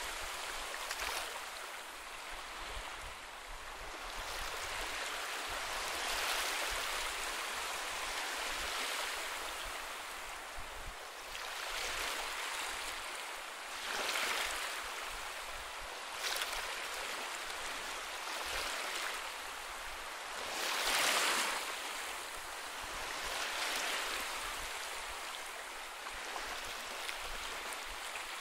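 Sea waves washing onto a beach: a steady hiss of surf that swells and eases every few seconds, with the biggest swell about three-quarters of the way through.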